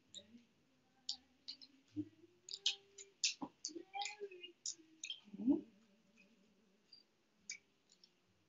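Scattered light clicks of bind wire and pine cone scales handled and twisted together as the wire is wound on, with a faint low voice humming under it.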